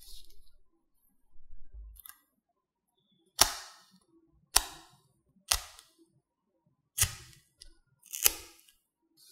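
Five sharp snapping tears, about a second apart, as small tape-laminated paper spikes are pulled off a paper cut-out with metal tweezers.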